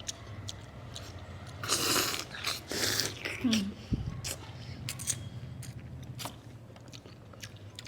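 Close-up eating sounds: a person chewing and biting food, with short wet mouth clicks and two louder crunchy bites about two and three seconds in.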